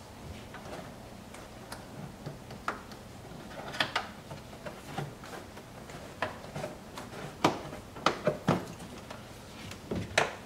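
Rubber weatherstrip seal being pressed back down by hand onto the edge of a C8 Corvette's engine compartment: a string of soft, irregular taps and clicks.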